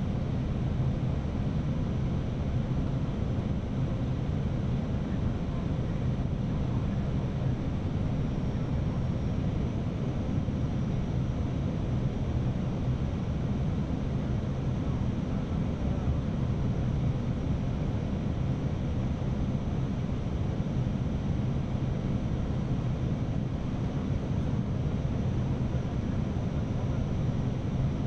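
Steady cockpit noise of an Airbus A319 airliner on approach: an even low rumble of airflow and engines, with a faint thin high whine running underneath.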